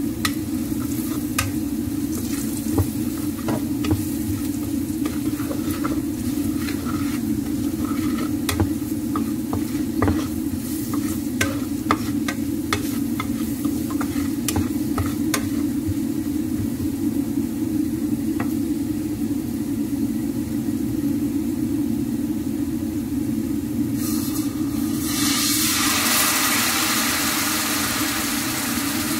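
Garlic, ginger and curry spices frying in oil in a nonstick pan, with a spatula scraping and tapping against the pan in the first half. About 24 seconds in, a louder sizzle rises as a creamy liquid is poured from a carton into the hot pan. A steady low hum runs underneath.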